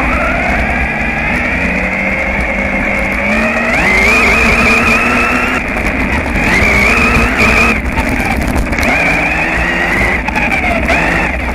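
Radio-controlled cars' motors whining, the pitch rising and falling as the cars speed up and slow down, with sharp rises about four seconds in and again near the end.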